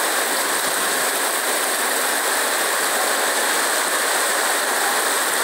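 Heavy rain pouring onto clay tile roofs: a steady, dense hiss with no let-up.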